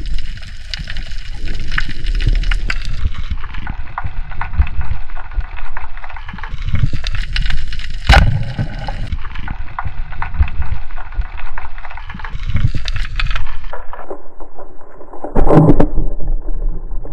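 Underwater noise picked up by a diving camera: steady crackling clicks over a rushing water sound, with one sharp snap about eight seconds in and a louder burst of water noise near the end.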